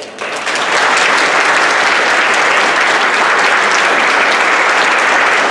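Audience applauding: the clapping starts suddenly, swells to full within about a second, then holds steady.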